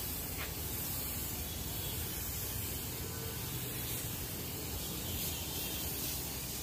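Gravity-feed spray gun hissing steadily as it sprays plastic primer onto a plastic car bumper.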